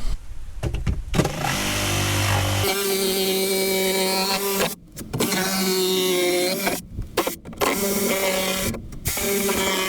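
Electric power tool cutting into a fiberglass boat seat, its motor running with a steady pitched hum. It stops briefly and starts again about three times.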